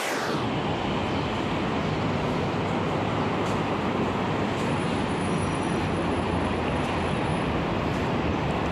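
Steady roadside traffic noise: a continuous low rumble with a wide hiss.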